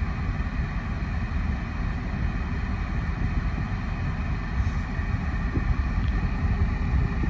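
Steady low rumble of car cabin noise, with no distinct events.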